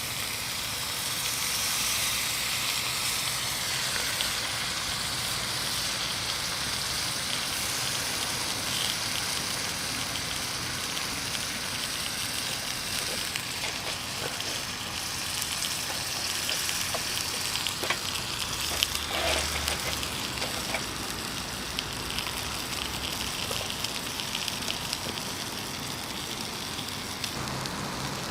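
Lamb sizzling on a grill over a wood fire: a steady hiss with fine crackles and pops, which grow more frequent about halfway through.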